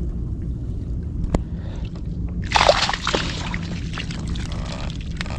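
Shallow water sloshing and splashing over tidal mud, with one louder splash about two and a half seconds in and a single sharp click before it, over a steady low rumble.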